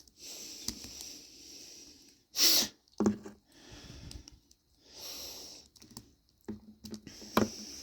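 A person breathing close to the microphone, with one short, loud burst of breath about two and a half seconds in. Light clicks of plastic action figures being handled on a table.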